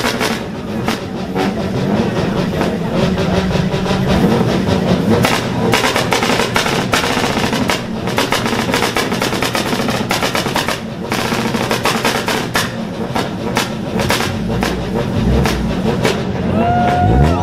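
A tuned car engine revved hard, with rapid crackling bangs from the exhaust, over crowd voices; a thumping music beat comes in near the end.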